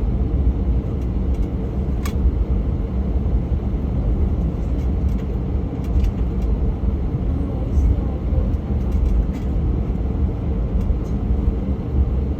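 Jet airliner cabin noise: a steady low rumble of the engines and airframe heard from inside the passenger cabin, with a few faint clicks.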